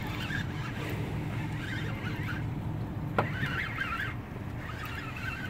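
Boat engine idling, a low steady hum, with one sharp click about three seconds in.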